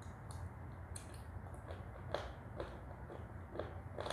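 Close-miked chewing of Turkestan clay: a string of small crunches and mouth clicks, about two a second, over a low steady hum.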